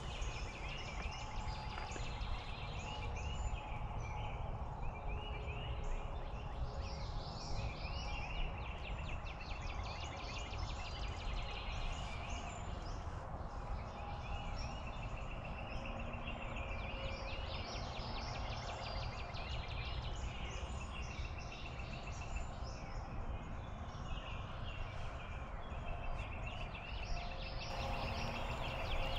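Songbirds singing in a dawn chorus, many short repeated notes, over a steady low background noise, with a wild turkey gobbling.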